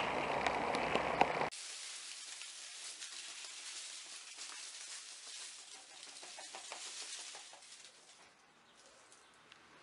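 A loud steady rushing noise cuts off suddenly about a second and a half in. A fainter crackling hiss with many small ticks follows and dies away near the end.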